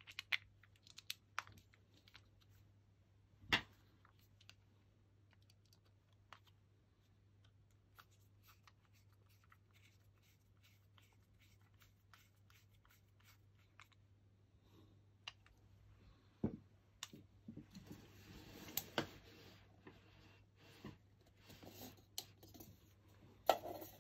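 Quiet hand-handling sounds of a three-pin plug and screwdriver: scattered small plastic clicks and taps, then from about 17 s a few seconds of denser scratching and rubbing, with a sharp knock near the end.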